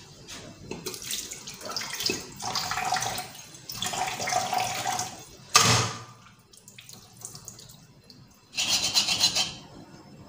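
Kitchen tap running into a sink in spurts as dishes are washed by hand. About halfway through there is one sudden loud clunk of a dish, and a last gush of water comes near the end.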